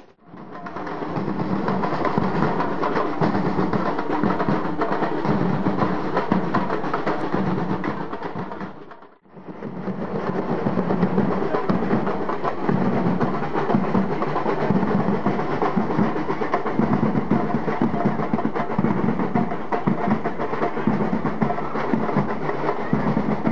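A street-parade drum troupe playing a loud, dense rhythm on stick-struck drums. The sound fades out and comes straight back about nine seconds in.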